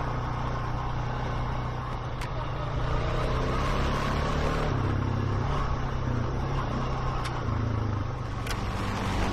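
ATV engine running while riding along a forest trail, its pitch shifting a few times with the throttle and getting louder about three seconds in. A few brief sharp ticks are heard over it.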